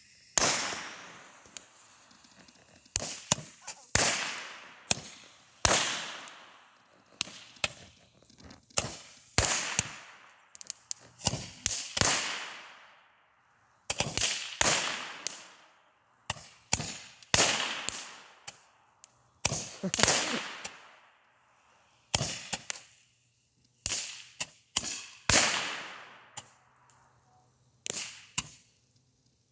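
Handheld roman candle firing a long run of shots, roughly one or two a second with short pauses, each a sharp pop trailing off in a fading hiss.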